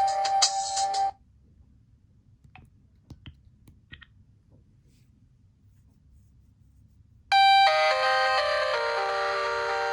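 Motorola RAZR V8 ringtones playing from the phone's speaker: an electronic melody cuts off about a second in, and after a quiet gap with a few faint clicks a different ringtone melody starts suddenly near the end.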